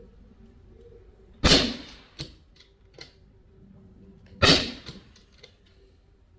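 Two shots from a Sig Sauer MCX Rattler Canebrake CO2 .177 air rifle, about three seconds apart, each a sharp crack followed by a few fainter ticks.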